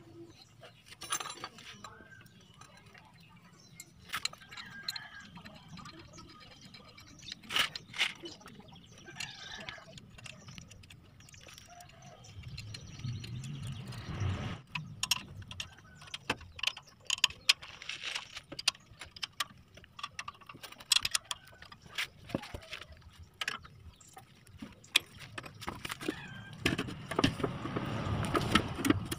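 Scattered metallic clicks and knocks of a pressed-steel oil pan being handled and fitted back against the underside of the engine, with rustling and scraping as it is pushed into place.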